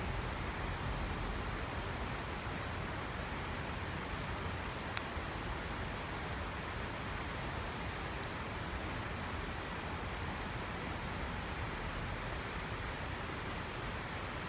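Waterfall rushing steadily and loudly, with faint, scattered sharp ticks of the campfire crackling.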